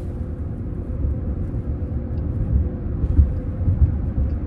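Inside the cabin of a moving car: a steady low rumble of road and engine noise, with a faint steady hum above it.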